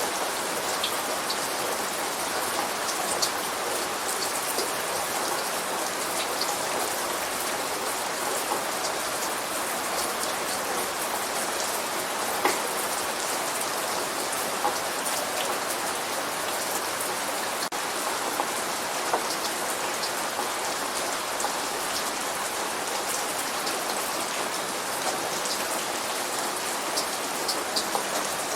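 Steady light rain falling, an even hiss with scattered sharp drop ticks on a surface; no thunder.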